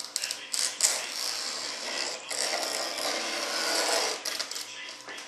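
Clear plastic film being peeled and crinkled off the edge of a freshly laminated composite part in its mold: short ripping, crackling bursts, then a longer continuous rip through the middle.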